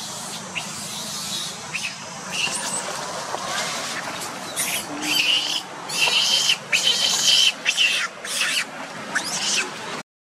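Young long-tailed macaque screaming in a rapid series of short, high-pitched cries, the sound of a frightened young monkey. The cries begin about two seconds in and are loudest near the middle.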